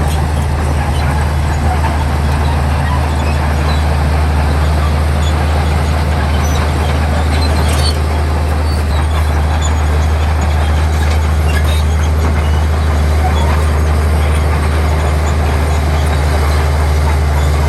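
Heavy diesel engine of earthmoving equipment running steadily with a constant deep hum.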